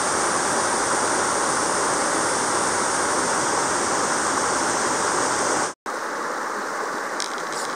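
Mountain creek water rushing, a steady dense hiss. About six seconds in, it cuts abruptly to a quieter stretch of flowing water.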